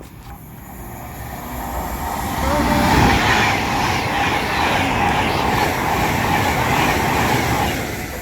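Class 350 electric multiple unit passing at speed: the rush of wheels and air builds up, is loudest about three seconds in, holds steady with a faint whine, then drops away near the end as the last coach goes by.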